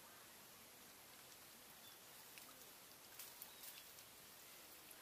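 Near silence, with a few faint drips and splashes about three seconds in as a woven bamboo fish trap is lifted out of shallow water.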